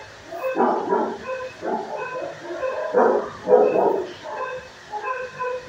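Dogs barking repeatedly in a shelter kennel room, barks coming every half second or so with the loudest around three and a half seconds in.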